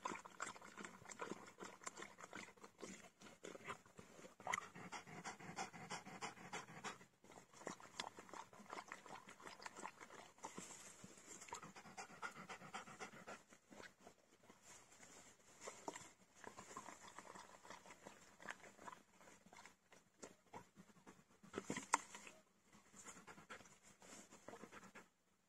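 Faint Irish setter panting, with rapid wet lapping from a plastic water tub in the first several seconds.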